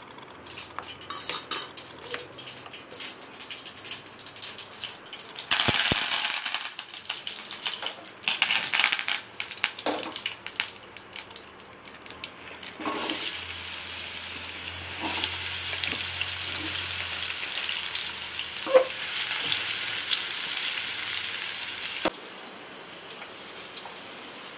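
Mustard seeds crackling and spattering in hot oil in a small steel pan, with sharp bursts of sizzling a few seconds in as red chillies and curry leaves go in. From about halfway a steady, strong sizzle follows as diced raw mango is tipped into the oil. The sizzle cuts off suddenly near the end.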